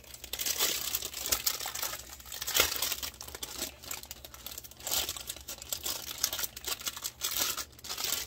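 Thin clear plastic packaging crinkling and crackling as bags of diamond painting drills are handled: an irregular run of sharp rustles.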